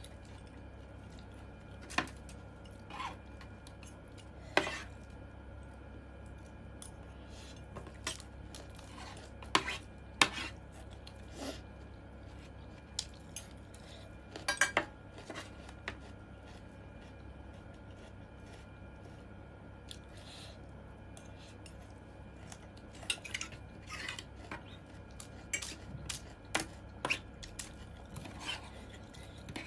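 Metal cutlery clinking against a dish during a meal: scattered, irregular sharp clinks, some in quick clusters, over a steady low hum.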